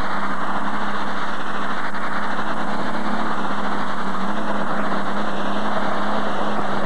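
Modified pulling tractor's engines at full throttle, hauling the weight sled down the track under heavy load: a loud, steady drone with a constant low tone.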